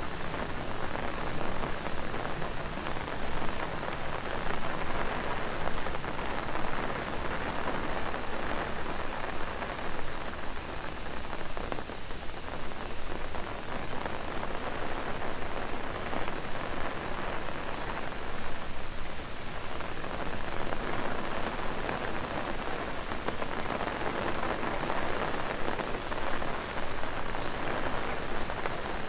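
Steady heavy rain pattering on an umbrella and the ground, with a continuous high-pitched cicada drone running over it.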